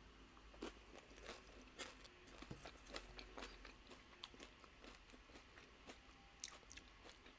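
Faint, close-miked chewing of loaded nacho chips, with soft crunches and irregular wet mouth clicks.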